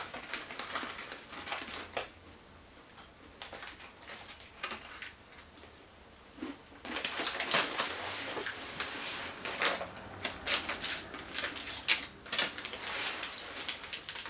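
MRE plastic packets being handled and torn open, crinkling and crackling in scattered bursts, sparse for a few seconds and then dense from about seven seconds in.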